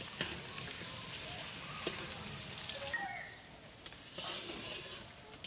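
Chopped onions sizzling in hot oil in a pan, a steady frying hiss with scattered crackles.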